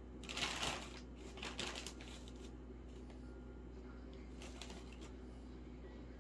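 Soft rustling and light taps of a hand placing chopped bell pepper and onion pieces onto pizzas, in a few short bursts, the loudest about half a second in, over a steady low hum.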